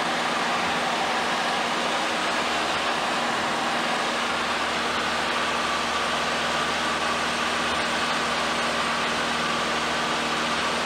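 Steady drone of a light aircraft's engine with wind noise, heard inside the cabin.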